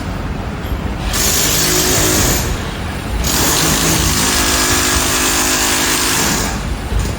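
Construction-site concrete-breaking noise: a breaker hammering in two long spells, the first about a second in and the second from about three seconds to six and a half, over a steady low machine rumble.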